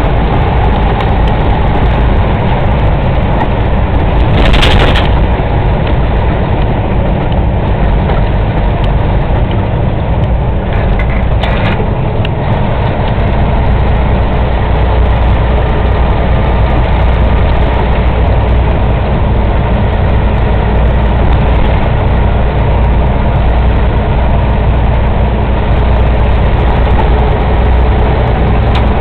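Heavy diesel semi truck running steadily at highway speed, heard from inside the cab: a loud, constant low engine drone mixed with road noise. Two short noisy bursts cut through, about four and a half and eleven and a half seconds in.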